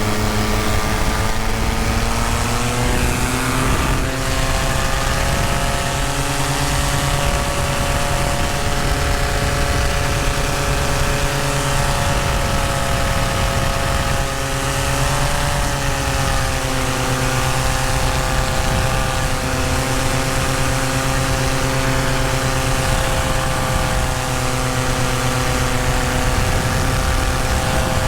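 Tandem paramotor's engine and propeller running steadily, with a rushing noise over it. The engine pitch rises a little a few seconds in, and lifts and dips briefly about halfway through.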